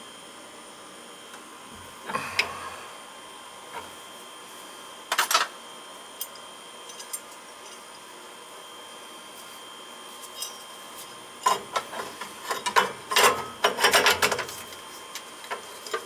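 Clicks, knocks and rattles of hand tools and metal parts being handled on a Riello oil burner during servicing. There is a short cluster about two seconds in, another about five seconds in, and a dense run of sharp clicks from about twelve to fourteen and a half seconds, over a faint steady hum.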